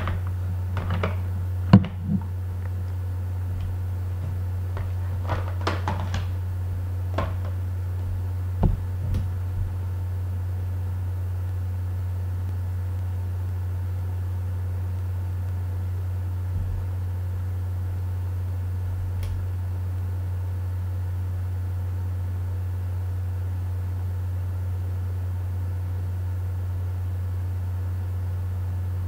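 Steady low hum, with a few short knocks and taps in the first ten seconds, the sharpest a little under two seconds in, from makeup items being handled.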